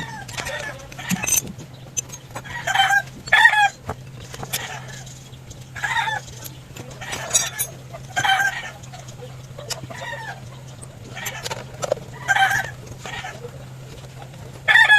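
Chickens clucking in short, repeated calls about every second or so, over a steady low hum.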